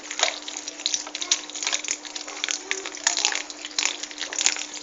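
Water being added to a chickpea-flour batter in a bowl as it is stirred: wet sloshing with many irregular small clicks and splashes of the mixing. A steady low hum runs underneath.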